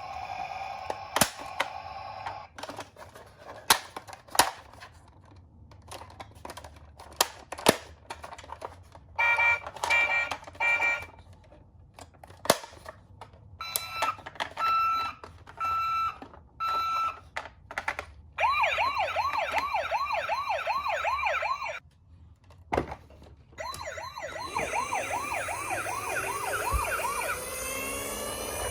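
Toy ambulance's electronic siren sounding in several patterns: a few short beeps, a run of evenly spaced single beeps, then a fast warbling wail that breaks off briefly and starts again. Scattered sharp clicks and knocks come before the siren.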